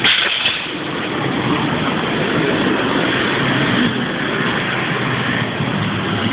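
Street traffic: a motor vehicle's engine running steadily under an even rushing noise, with a short click right at the start.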